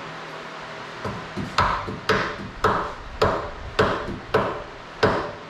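A hammer tapping the engine at its motor mount to drive it into place. The blows come in a steady series of sharp strikes, about two a second, starting about a second in.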